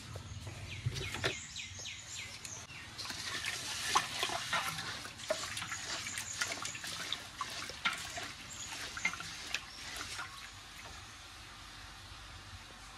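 A large aluminium pot of rice boiling, bubbling and spitting, with scattered clicks and scrapes as it is stirred. The bubbling thins out near the end.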